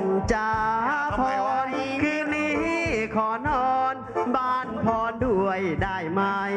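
Live song: a singer holds long notes that slide and bend between pitches, over a band accompaniment.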